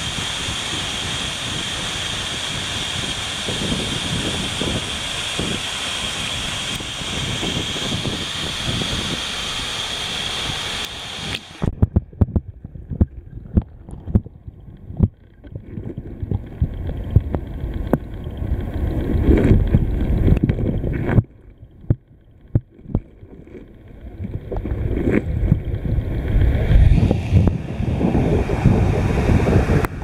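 Waterfall spray pouring down close to the microphone in a steady, hissing rush. About eleven seconds in it cuts off abruptly as the camera goes under water: the sound turns muffled and low, with knocks, pops and bubbly gurgles and swelling low rumbles of churning water.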